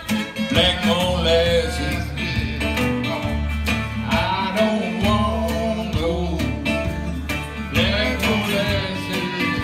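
Live acoustic blues music: a 12-string acoustic guitar strums a steady rhythm with low sustained bass notes, while a bending melody line sounds over it without words.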